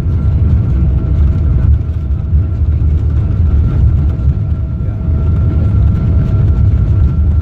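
Boeing 777-200 heard from inside the passenger cabin during the landing: a loud, steady low rumble of jet engines and airflow, with a faint steady whine above it.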